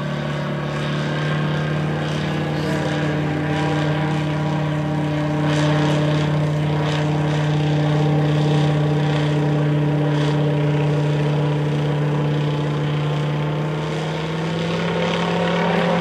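Just Aircraft SuperSTOL light plane's engine and propeller droning steadily as it flies overhead. The pitch rises a little near the end.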